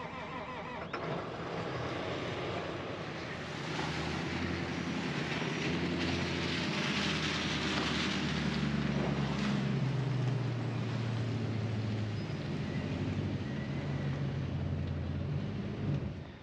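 A vehicle engine running steadily, with engine and road noise building about four seconds in and holding through the rest.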